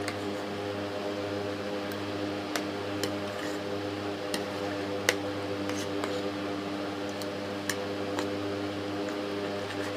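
A metal spoon clinks against a ceramic plate several times in short sharp taps, the loudest about five seconds in, while food is scooped up. A steady mechanical hum with a fixed pitch runs underneath.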